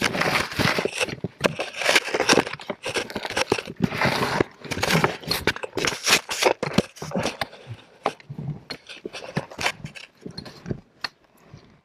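A caver crawling through a tight rock squeeze: clothing, gloves and helmet scraping and rubbing on rock, with loose stones and gravel clattering. The dense scraping thins out after about seven seconds to scattered clicks and knocks.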